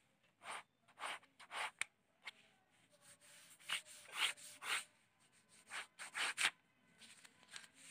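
Red pen scratching across paper in quick strokes, in three bunches: a few near the start, a louder group about four seconds in, and another about six seconds in, as straight border lines and sketch marks are drawn.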